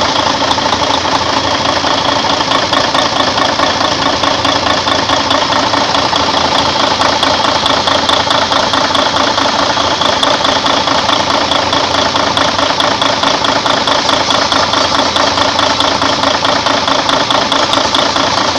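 Freshly overhauled Mercedes-Benz Actros truck diesel engine idling steadily, with a fast, even clatter.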